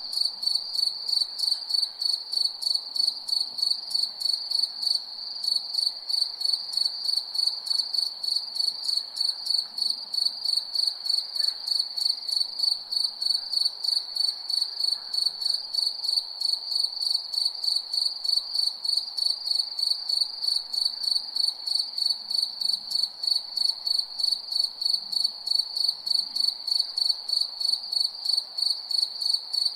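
Cricket chirping at night: a high, ringing chirp repeated in a fast, even rhythm without a break.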